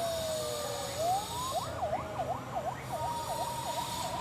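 Siren on the KAIS 4 railway inspection train sounding: a slow wail sliding down in pitch, then rising about a second in and switching to a fast yelp that warbles up and down about three times a second, with a steady tone joining about three seconds in.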